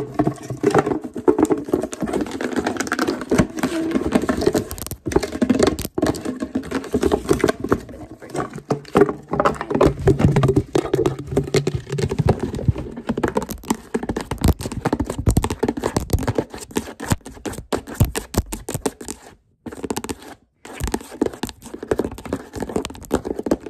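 Long fingernails tapping fast and irregularly on a glossy paper gift bag, mixed with scratching and handling of the bag.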